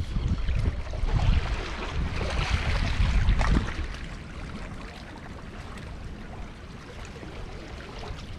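Wind gusting on the microphone over the wash of seawater against a rock wall. The low buffeting is heavy at first and eases off about three and a half seconds in, leaving a steady hiss of water.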